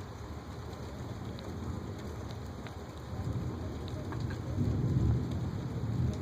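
Rain falling steadily with scattered drops ticking, and a low rumble of thunder that builds from about three seconds in and is loudest around five seconds.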